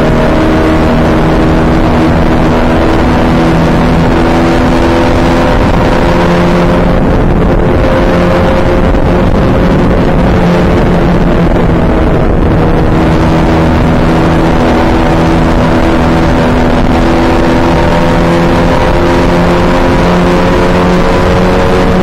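Open-wheel single-seater racing car's engine running hard, heard onboard. The note eases off briefly twice around the middle, then climbs steadily as the car accelerates towards the end.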